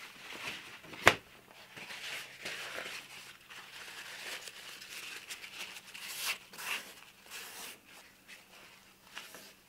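Paper towel rustling and crinkling as it is handled and folded to wipe glue off a freshly clamped wooden mold, with a few louder crinkles later on. A single sharp click about a second in is the loudest sound.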